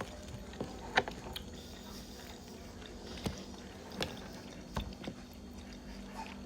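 Close mouth sounds of someone chewing cow's foot meat: scattered wet smacks and clicks, roughly one a second.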